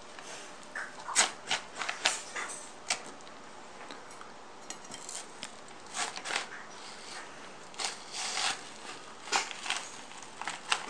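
A watermelon being cut with a knife: irregular sharp cracks as the rind splits, with a few longer crackling stretches as the blade works through.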